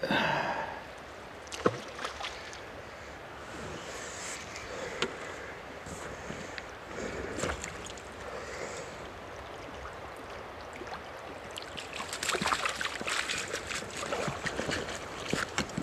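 River water running, with a splash right at the start and scattered splashes and sloshing afterwards, busiest in the last few seconds.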